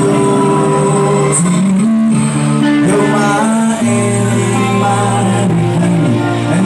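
Live band playing through a bar PA: electric guitars with a sung vocal line over them.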